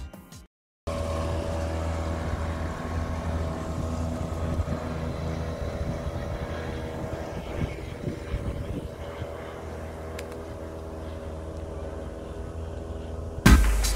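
Boat engine running at a steady speed, a low even drone with a constant hum. It cuts in about a second in and stops abruptly just before the end.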